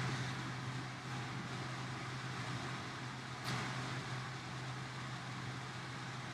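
Steady low hum with a background hiss, and one faint click about three and a half seconds in.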